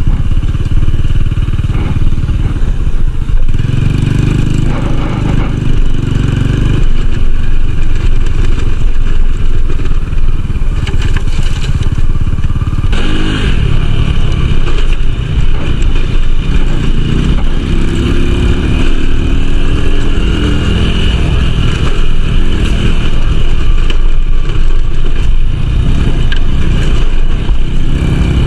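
Small motorcycle engine running loud and continuous while being ridden off-road, its pitch rising and falling several times with the throttle.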